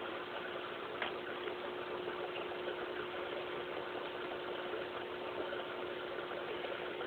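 Aquarium pump running with a steady hum under a constant hiss of moving water and bubbles; a single faint click about a second in.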